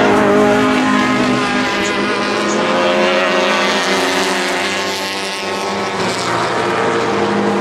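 A pack of small Alfa Romeo and Fiat club racing cars passing one after another under power, several engines running at once with their pitches overlapping and shifting as each car goes by.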